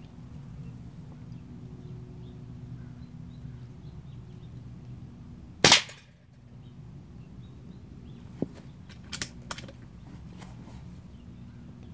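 A single shot from a .22 Benjamin Marauder PCP air pistol, a sharp crack about six seconds in. About three seconds later come a few much lighter clicks.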